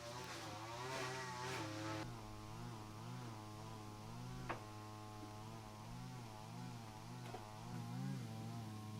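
A small engine running, its pitch rising and falling again and again, with a sharp click about four and a half seconds in and another near seven seconds.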